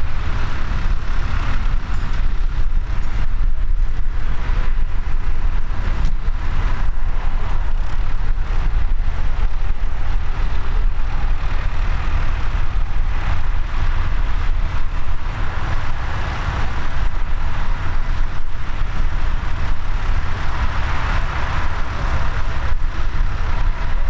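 Tractor engine idling steadily, with wind rumbling on the microphone.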